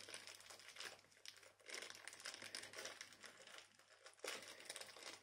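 Faint, intermittent crinkling of small plastic packaging and sticky tape being picked at by fingers.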